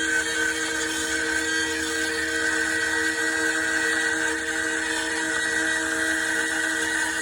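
CNC router spindle running steadily as it carves wood, a constant whine over the hiss of the cut.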